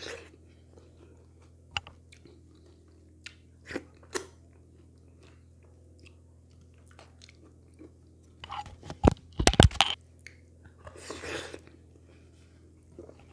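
Close-up eating sounds of wheat fufu and okra soup with fish, eaten by hand: scattered wet mouth clicks and chewing, with a cluster of loud, sharp crunching clicks about nine seconds in. A faint steady low hum sits underneath.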